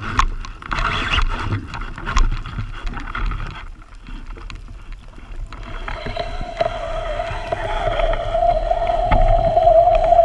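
Underwater sound: water noise with scattered clicks and knocks, then a quieter spell. From about six seconds in comes a steady whine that grows louder, a boat's motor heard through the water.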